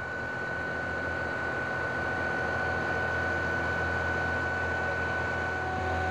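Truck-mounted concrete boom pump running steadily as its hydraulic boom folds up: a low engine and hydraulic drone with a thin, steady high whine over it.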